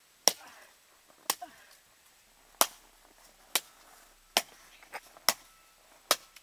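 Rubber mallet striking a small digital camera, smashing it apart: a series of sharp, separate knocks, roughly one a second, with a few fainter ones in between.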